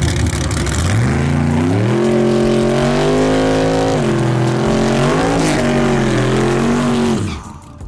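Fox-body Ford Mustang drag car doing a burnout: the engine climbs in revs about a second in, holds high with a brief dip midway, then cuts off suddenly near the end.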